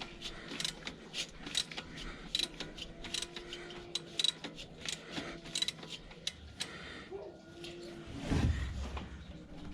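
Ratchet wrench with a 13 mm socket clicking in a steady series, about two and a half clicks a second, as the alternator adjusting nut is loosened. A louder low scrape near the end.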